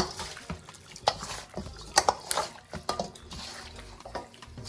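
Kitchen clatter: utensils clinking and knocking against dishes and pans in a string of irregular sharp taps.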